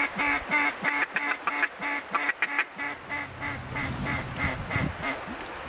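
Mallard duck call blown in a long run of quacks, about four a second, growing fainter toward the end: the hen-mallard series used to turn ducks flying over the decoys.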